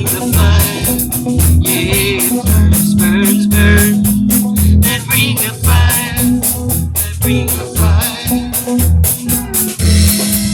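A band playing: guitar over bass and drum kit with a steady beat.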